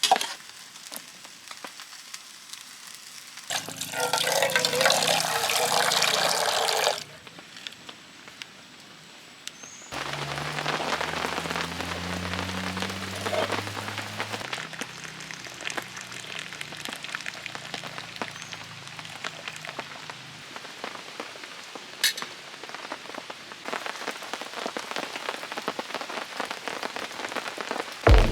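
Rain falling, with a dense patter of drops. The rain noise grows louder for a few seconds about four seconds in, and a low steady hum runs under it from about ten seconds to twenty.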